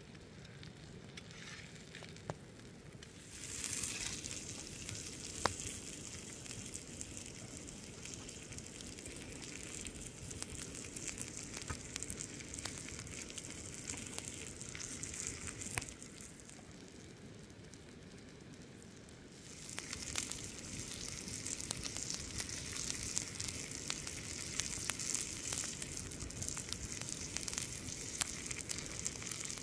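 Thick bone-in beef steak sizzling on a fire-heated stone slab, with a wood fire crackling beneath in scattered sharp pops. The sizzle swells about three seconds in, drops back for a few seconds past the middle, then comes back stronger.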